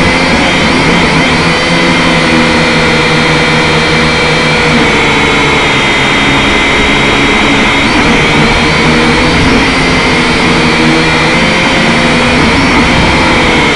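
Syma X5SC quadcopter's four small electric motors and propellers whining loudly, heard close from the drone's own onboard camera. The pitch drifts up and down as the throttle changes while it flies.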